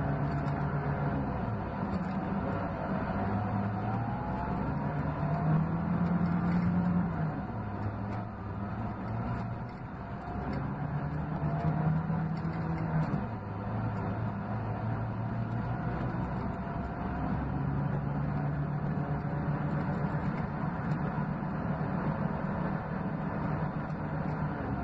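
Scania K380 coach's rear-mounted DC12 06 inline six-cylinder diesel running, heard from inside the coach, its low note shifting between steady levels every few seconds. A faint whine rises in pitch a few seconds in.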